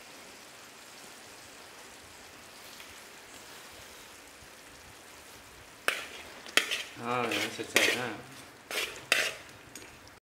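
Coconut rat meat cooking down in coconut water and satế in a pan, sizzling faintly and steadily. About six seconds in, a utensil stirs it, scraping and clinking against the pan several times.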